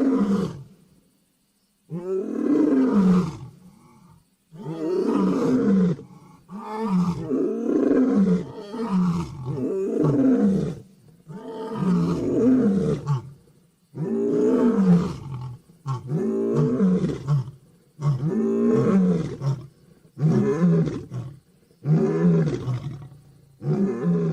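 Katanga lion roaring: a run of about a dozen roars, each one to two seconds long and falling in pitch, coming roughly every two seconds.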